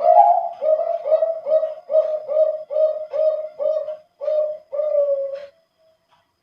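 Male zebra dove (perkutut) of the Bangkok contest strain singing its deep, full-voiced cooing song. An opening note is followed by a run of about nine short coos, roughly two a second, ending in a longer drawn-out coo about five and a half seconds in.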